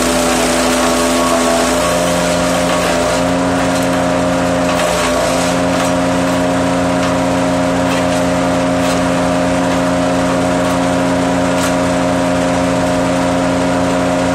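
Gasoline wood chipper running at full throttle and shredding branches. Its engine note sags briefly a few times as the wood loads it, over a dense grinding hiss, with a few sharp cracks of wood being cut.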